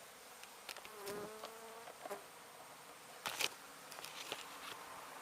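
Honey bees buzzing around an opened hive, one passing close with a steady buzz for about a second, about a second in. A few sharp clicks and knocks among the buzzing, the loudest about three seconds in.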